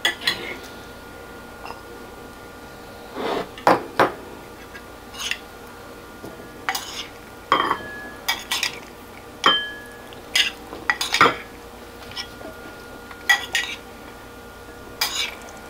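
Metal spoon clinking and scraping against white ceramic bowls while corn and chickpea salad is spooned from one bowl into another. About a dozen irregular clinks, a few of them ringing briefly.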